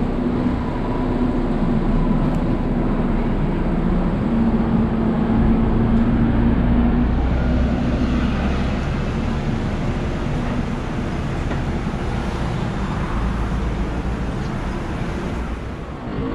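Street traffic: a steady wash of passing road vehicles with low engine rumble and hum.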